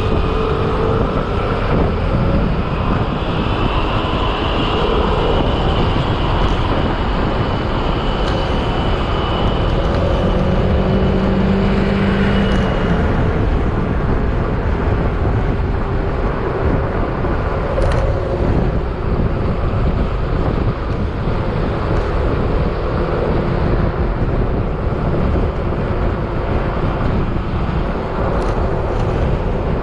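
Yamaha XMAX maxi-scooter riding along the road: its single-cylinder engine runs steadily under constant wind and road noise. A higher whine comes and goes in the first half.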